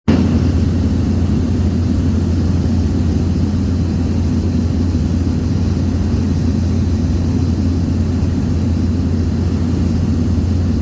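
Loud, steady low engine drone that holds unchanged throughout.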